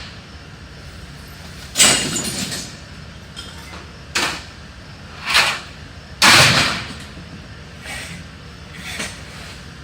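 Furniture and junk being broken up and handled: a string of irregular crashes and bangs, the loudest and longest about six seconds in.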